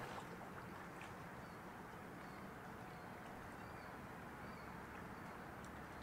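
Faint, steady outdoor background rumble and hiss, with a few short, faint bird chirps.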